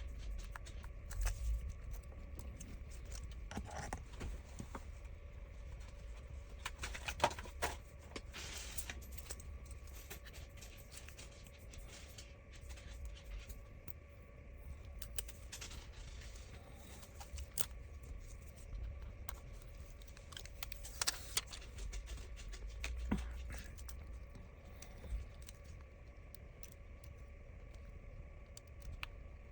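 Faint, scattered small clicks and light taps of tools and tiny parts being handled during iPhone screen repair work, over a steady faint hum.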